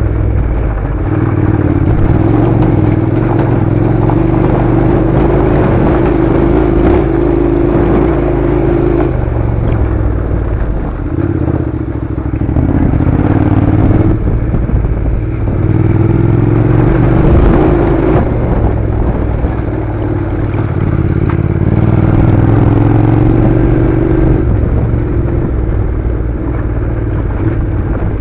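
Honda NC700's 670 cc parallel-twin engine running as the motorcycle rides slowly over a rough dirt track, its note rising and falling every few seconds with the throttle, with occasional knocks and clatter from the bumpy ground.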